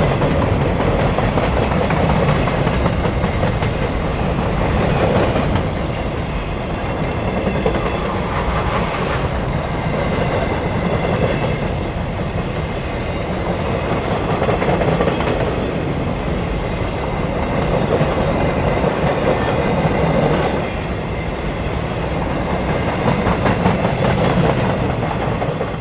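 A long string of empty Railbox boxcars rolling past, a steady rumble and rattle of steel wheels on the rails that swells and eases slightly as the cars go by.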